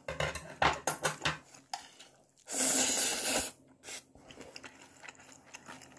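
Eating sounds: cutlery clicking against a dish several times, then a loud, sharp rush of breath lasting about a second midway, followed by a few faint clicks.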